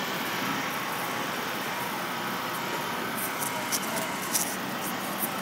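Steady outdoor background noise with the low hum of distant vehicle engines, and a few faint clicks.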